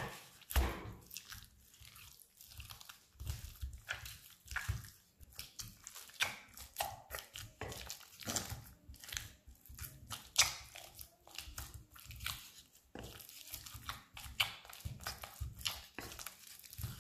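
Wooden spoon stirring and scraping a stiff durum-wheat dough in a glass bowl: irregular scrapes, squishes and knocks against the glass as the last water is worked into the dough.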